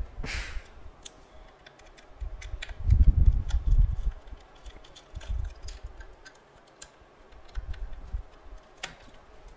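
Scattered light clicks and taps of a small screwdriver and fingers on the plastic housing and circuit board of a pest-repeller unit being taken apart, with dull low thumps of handling about a third of the way in and again near the end.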